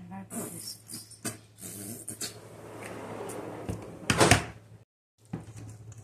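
Kitchen handling sounds over a steel bowl of raw seasoned chicken: a sauce bottle being squeezed, then a sharp knock about four seconds in, the loudest sound. Near the end, hands begin mixing the meat in the bowl.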